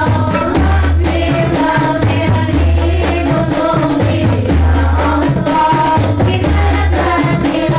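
A group of women singing to rebana frame drums, amplified through a PA sound system. Under the voices a deep low note comes back about every two seconds.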